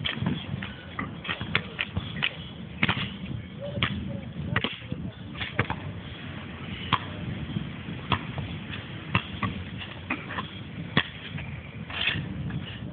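Basketball bouncing and being shot on an outdoor court: irregular sharp thuds and knocks, about a dozen, over a steady low rumble.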